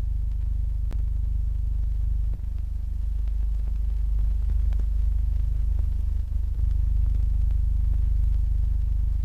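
A steady deep rumble or drone with a few faint clicks over it, growing slightly louder about four seconds in.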